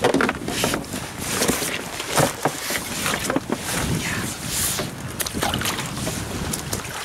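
Sea kayak being paddled through shallow water: the paddle blades splash and drip about once a second with each stroke, over a hiss of water and light wind on the microphone.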